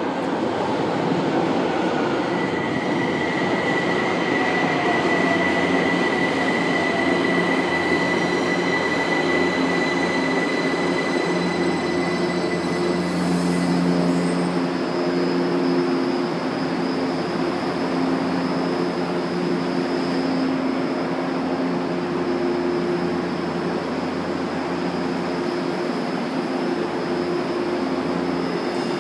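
São Paulo Metro train pulling into the station and braking to a stop, with a steady high squeal and a slowly falling whine as it slows. A short hiss comes about halfway through as it halts, then the standing train hums steadily with a high tone.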